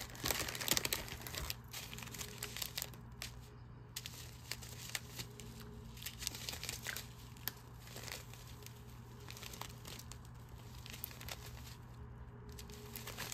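Plastic packaging of a diamond-painting kit crinkling as it is handled, with scattered small clicks, busiest in the first second.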